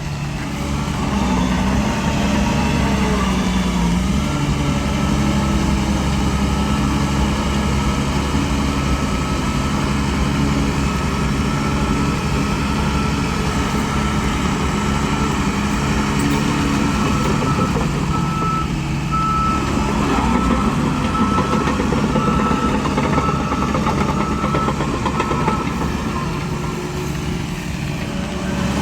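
Heavy diesel earthmoving machinery running under load. From about halfway through, a reversing alarm beeps at an even pace for several seconds.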